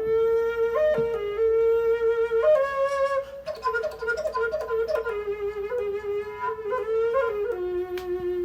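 A small flute playing a melody of short stepping notes with quick ornaments, settling on a lower held note near the end.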